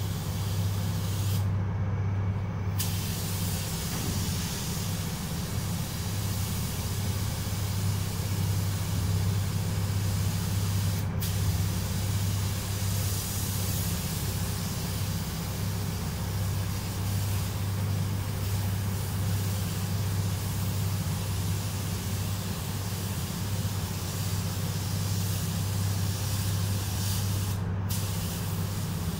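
Air-fed automotive spray gun hissing steadily as it lays metallic paint onto a car body, with the trigger let off briefly about two seconds in, once near the middle and once near the end. A steady low hum runs underneath.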